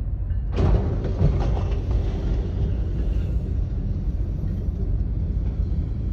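A train striking a truck: a sudden loud crash about half a second in and a second impact just after, then the train's steady low rumble as it rolls on.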